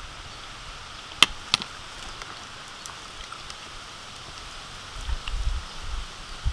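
A metal spoon set down on a tray: two sharp clinks about a third of a second apart, over a steady outdoor hiss. A low rumble comes near the end.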